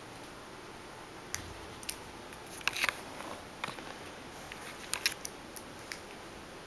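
Kitten's claws scratching and scrabbling at a cardboard scratcher pad, heard as a scattering of short scratches and clicks. They are busiest about three seconds in and again about five seconds in.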